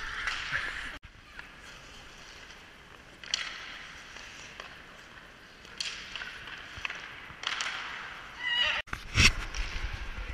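Hockey skate blades scraping and cutting on rink ice in scattered strokes, with a sharp loud knock about nine seconds in.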